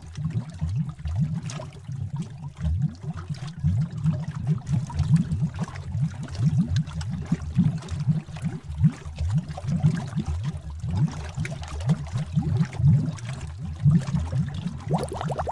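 Bubbling cauldron sound effect: thick liquid bubbling in a dense run of low, short bloops. A higher, faster burbling comes in near the end.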